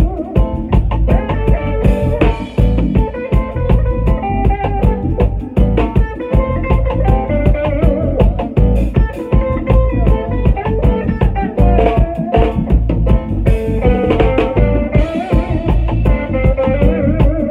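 A live band playing: electric guitar over drum kit and bass, with a steady beat.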